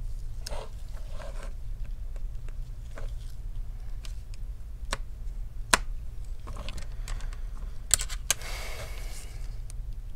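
Scattered small clicks and taps from handling a phone's parts and small repair tools on a bench, with a brief scraping rustle about eight seconds in, over a steady low hum.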